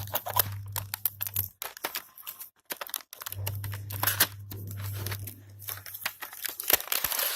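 Packaging of a Bluetooth headset being handled and opened by hand: crinkling and rustling with many sharp clicks and taps, busiest near the end. A low steady hum drops out for a couple of seconds and comes back.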